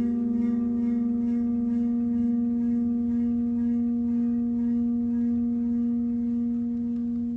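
Large round metal plate rubbed at its edge, singing one steady low ringing tone with overtones, gently pulsing in loudness. The plate is vibrating in a standing-wave mode.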